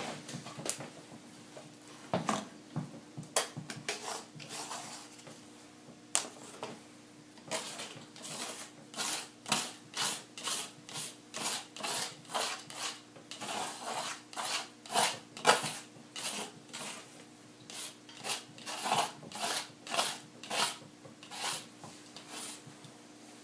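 Palette knife scraping leftover oil paint off a palette's mixing area: short scraping strokes, scattered at first, then coming quickly at about two a second through most of the second half.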